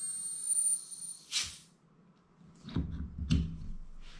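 High-pressure air hissing through a fill probe into an Edgun Leshiy 2's 350 cc, 300 bar carbon fiber bottle. It is a thin hiss with a steady high whistle that stops about a second in. A short sharp burst of hiss follows as the fill line is bled, then a few clicks and knocks as the fill probe is pulled out of the rifle.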